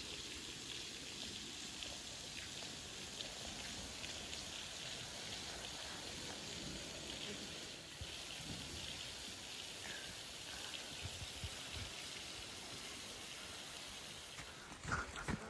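Steady hiss of water with a light patter through it, and a few sharp knocks near the end.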